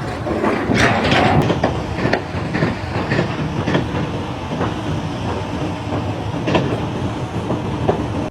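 Loud, continuous mechanical rumble with many sharp clanks and knocks scattered through it, clattering like rolling metal.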